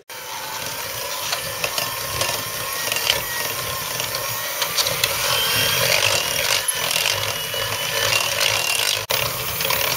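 Electric hand mixer switched on and running steadily, its twin beaters whisking sugar and yogurt in a ceramic bowl.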